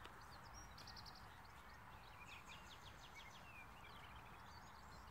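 Near silence with faint birdsong: scattered high chirps and quick trills, a rapid trill about a second in and a run of short chirps near the middle, over a low outdoor background rumble.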